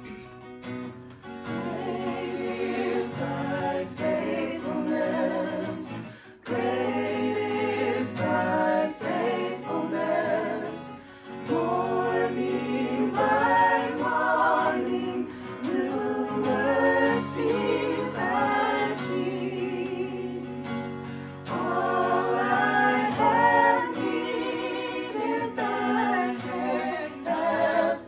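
Worship song: voices singing a gospel-style praise song over guitar accompaniment, with a short break about six seconds in.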